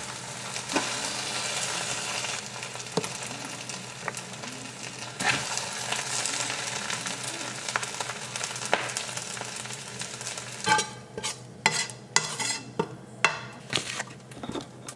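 Tongs lifting saucy spaghetti out of a hot pot: a steady sizzle with wet stirring and scraping, then several sharp clacks of the tongs and container over the last few seconds.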